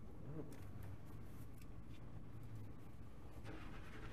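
Quiet room tone with a low steady hum, faint rustling and a few light clicks.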